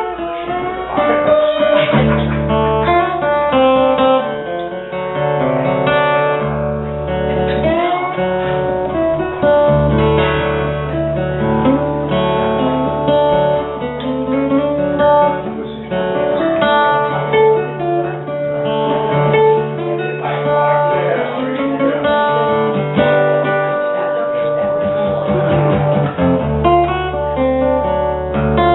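Solo acoustic guitar played live, a plucked melody over held bass notes.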